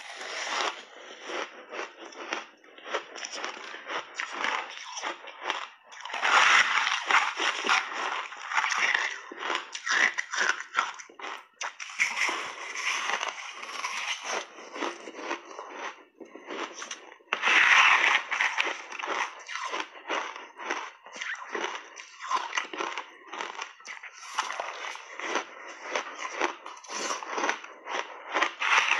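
Shaved ice being bitten and chewed in big mouthfuls: a dense, continuous crunching and crackling. It gets louder about six seconds in and again around eighteen seconds.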